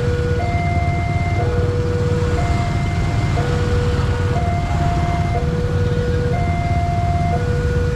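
Railway level-crossing warning alarm sounding from its horn loudspeaker: a two-tone electronic chime alternating a higher and a lower note, each held about a second, over and over, warning that a train is coming. Beneath it, a steady low rumble of motorcycle engines idling at the closed crossing.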